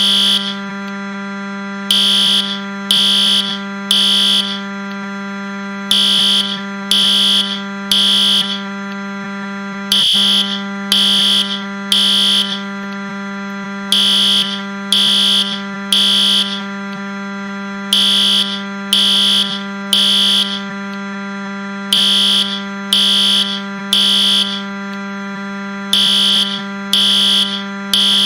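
Fire alarm sounding in a temporal-three pattern: three high beeps a second apart, then a pause, the group repeating every four seconds. Under it runs a continuous low electronic buzz, the Nintendo Wii crash sound pitched down.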